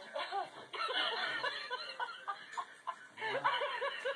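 Battery-powered laughing plush toy dog rolling on the floor and playing its recorded laugh, a rapid string of short 'ha-ha' syllables that pauses briefly about three seconds in and then starts again.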